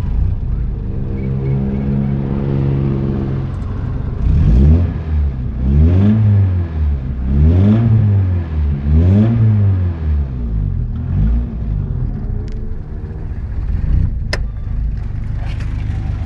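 A GSR's engine running steadily, then revved about four times in quick succession, each rev rising and falling in pitch, before settling back to a steady run, with one sharp click about 14 seconds in. It is run to let an engine noise be heard that its owner is asking about.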